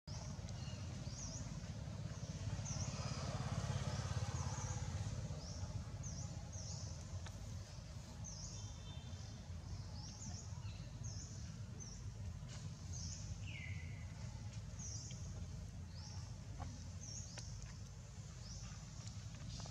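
Outdoor ambience: small birds chirping with short, high notes repeated every half second or so over a steady low rumble, with one longer descending call about thirteen seconds in.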